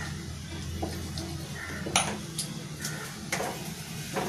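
Spatula knocking and scraping against a nonstick frying pan as beaten egg is spread in it: about five separate knocks, the loudest about two seconds in, over a steady low hum.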